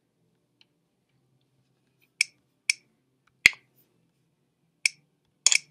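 Computer mouse clicking: five short, sharp clicks starting about two seconds in, the loudest near the middle, and a quick double click near the end.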